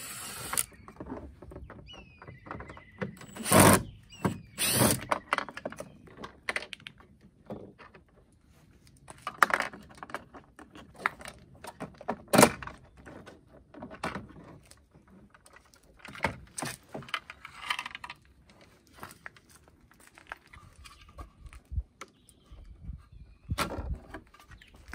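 Plastic door trim panel of a Toyota HiAce being unscrewed with a cordless drill-driver and pried off the door. The driver runs briefly, then come many irregular clicks and rattles of plastic clips and panel, with a few sharp knocks that are the loudest sounds.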